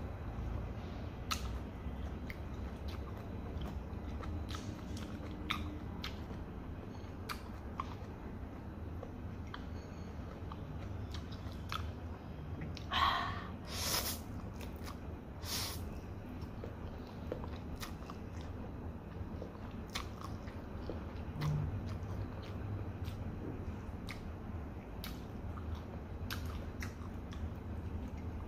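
Close-up chewing of fried noodles with small clicks throughout. A loud slurp of noodles comes about halfway through.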